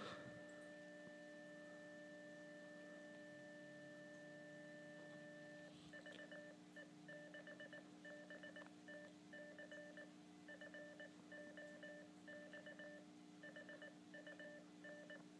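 Fox-hunt transmitter's alert tone: an Arduino-generated beep sent over a Baofeng UV-5R and picked up on a scanner, heard faintly. It holds as one steady tone for about six seconds, then carries on at the same pitch as a run of short and long beeps.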